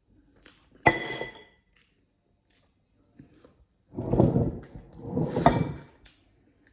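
Kitchenware being handled: a sharp clink that rings briefly about a second in, then two longer clattering knocks about four and five and a half seconds in.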